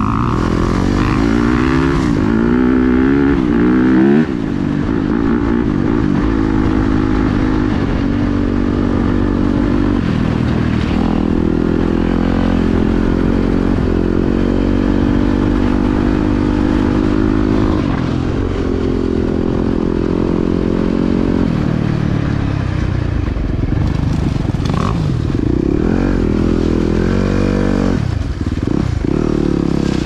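Yamaha YZ dirt bike engine, heard close up from the rider's helmet, under way with the revs climbing and dropping again and again as the throttle and gears change. There is a sharp drop in revs about four seconds in.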